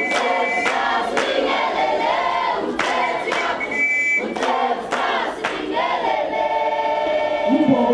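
A choir of young voices singing together, with sharp percussive hits at irregular intervals.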